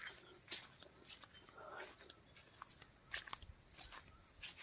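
Faint, steady high-pitched chirring of insects, with a few soft scattered clicks like footsteps on the ground.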